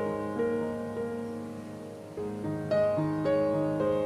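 Gentle piano music, a new note or chord struck about every half second and each fading away.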